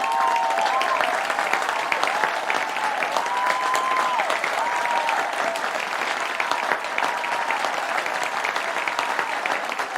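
A large crowd applauding with dense, steady clapping, with drawn-out cheers and whoops rising and falling over it, most of them in the first few seconds.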